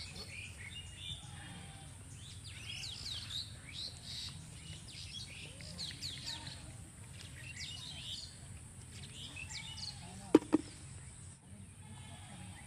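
Small birds chirping and calling over a steady high hiss. About ten seconds in there is a brief loud pitched sound, twice in quick succession.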